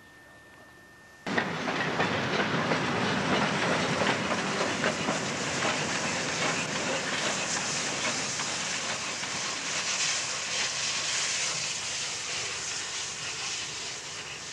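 Steam locomotive Ty3-2 working past with a train: its exhaust, steam hiss and rattling wheels and running gear. The sound cuts in suddenly about a second in and slowly fades over the last few seconds as the locomotive draws away.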